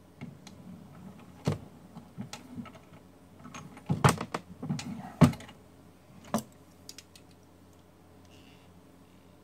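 Clicks, taps and light knocks of a brass rifle cartridge and metal reloading tools being handled at a single-stage reloading press, with the cartridge being taken out and measured in a caliper. The irregular clacks are loudest around four to five seconds in and stop about seven seconds in.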